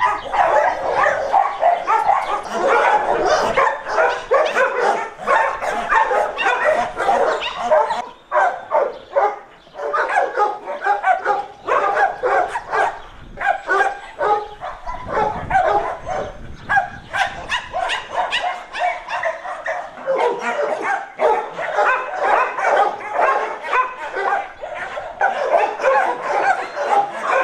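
Many dogs barking and yelping at once, a dense chorus of overlapping barks from kennelled shelter dogs. It keeps going throughout, with short lulls about a third of the way in and around the middle.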